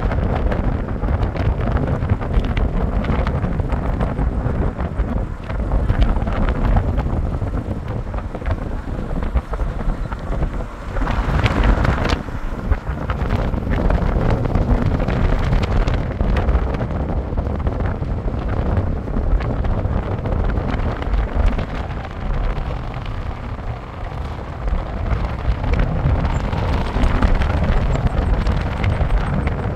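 Wind buffeting the microphone: a loud, continuous rumble whose loudness keeps rising and falling.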